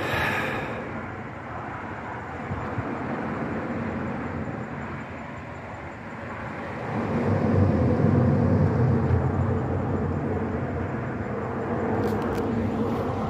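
A vehicle passing with a steady rumble that swells about seven seconds in and then eases.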